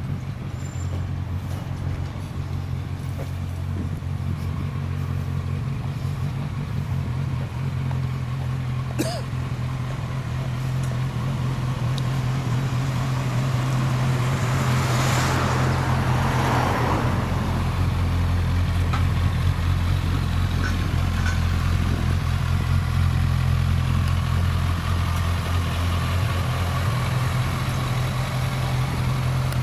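2016 Kawasaki Z1000 inline-four with a BEET NASSERT Evolution aftermarket muffler, running at low revs as the bike rolls slowly up and stops; the steady low exhaust note grows louder as it nears. About halfway through, a rush of noise rises and fades.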